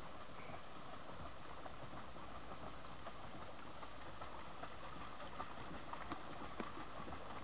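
Steady outdoor background noise, with a few faint clicks near the end.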